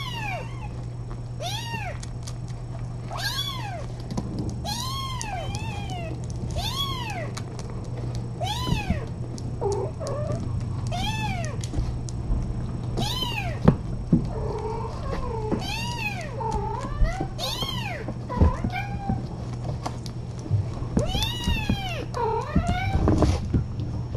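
Kittens meowing over and over, high rising-and-falling calls every second or two, now and then two at once, over a steady low hum.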